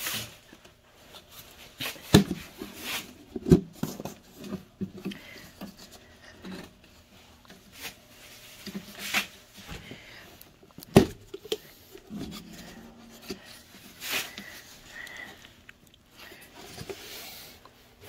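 A white plastic bucket lid being pried at and handled one-handed: scattered sharp knocks and snaps of stiff plastic, the loudest about eleven seconds in, with rubbing and scraping between.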